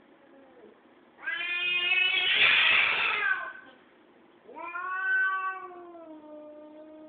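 Tom cat yowling twice, loud and long: the first yowl turns harsh and hissy in its middle, the second slides down into a lower, drawn-out moan. A threatening, territorial caterwaul.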